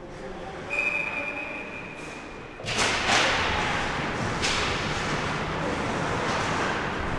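A referee's whistle blown once, a steady high tone lasting about two seconds. Just as it stops, a loud, sustained rush of noise sets in and carries on, with a few sharp knocks in it.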